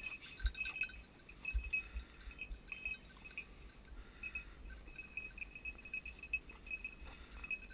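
Hunting dog's bell jingling in quick, irregular rings at one high pitch, with a few low thumps in the first two seconds.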